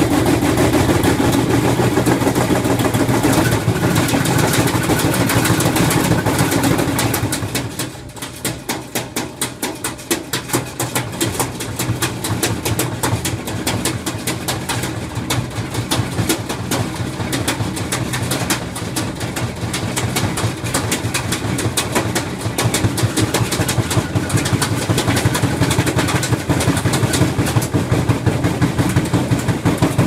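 Front-loading washing machine on a spin cycle with a heavy, unbalanced load, the drum banging rapidly and the cabinet rattling over the hum of the motor. The banging eases about a quarter of the way in and builds back up to fast, hard knocking near the end.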